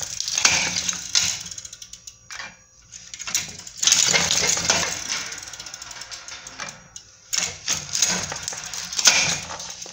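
Cashew nut cutting machine at work: raw cashew nuts and cut shells clattering and clicking through its metal chute and cutter, in three bursts of rattling a second or two long.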